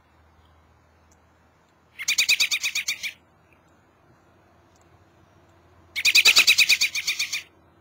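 American robin giving two bursts of rapid, repeated high notes, each a little over a second long and about four seconds apart.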